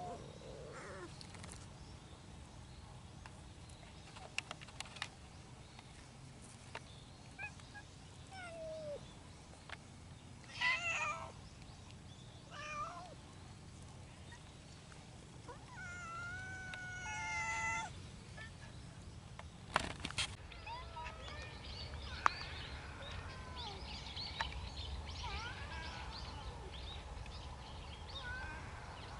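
Stray cats meowing: a few short meows, then one long drawn-out meow. After that come many faint, short, high chirps.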